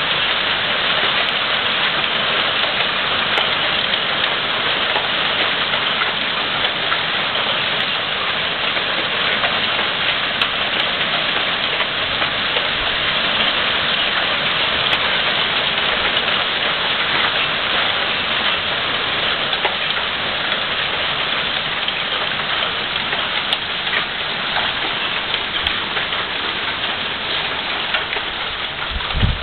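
Hail falling on a terracotta tile roof: a dense, steady hiss made of countless small ice pellets striking the clay tiles. There is a brief low bump near the end.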